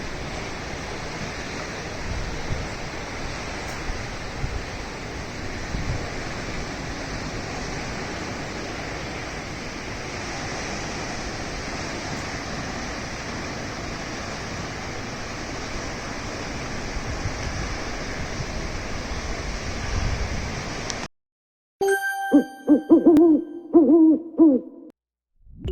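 Steady rush of ocean surf breaking on a beach, which cuts off abruptly about 21 seconds in. About a second later an owl hoots several times over roughly three seconds, louder than the surf.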